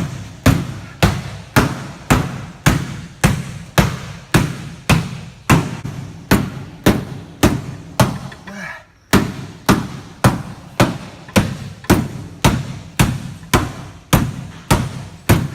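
Hammer blows on a car's sheet-steel firewall, about two a second with a short metallic ring after each, with a brief pause a little past halfway. The firewall is being beaten in to make clearance for an engine swap.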